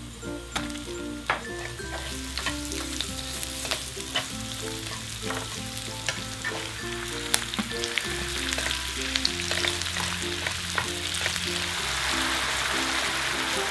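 Chili-flake oil sizzling in a nonstick frying pan as onions and sliced fish cake are stir-fried, with sharp clicks and taps of the utensil against the pan; the sizzle grows louder near the end. A light background tune plays underneath.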